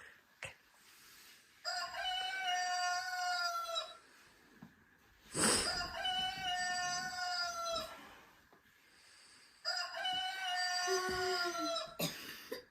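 Kids' alarm clock sounding a rooster-crow alarm: three crows, each about two seconds long with its pitch dipping at the end, repeating about every four seconds. A short, loud noise falls between the second and third crow, about five and a half seconds in.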